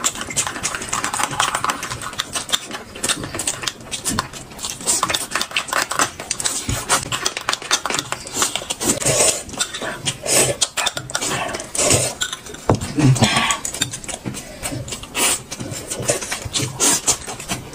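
Close-up eating sounds: chewing with quick, irregular clicks and clinks of chopsticks and tableware on dishes.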